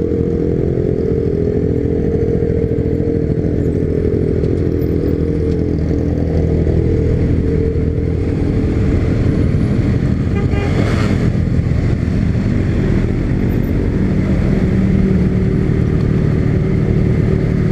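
Honda CB300's single-cylinder motorcycle engine running steadily while riding. There is a short hiss about eleven seconds in.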